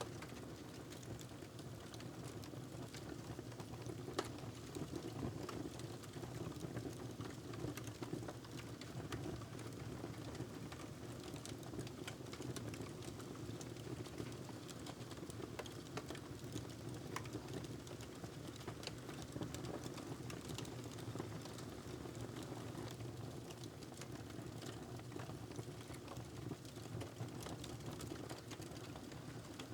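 Wood fire crackling in a fireplace: irregular small pops and snaps scattered over a steady low background.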